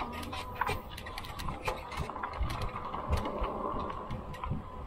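Electric bike riding over a rough trail: a steady whine from the Lectric XP's rear hub motor under many irregular clicks and rattles from the tyres and bike.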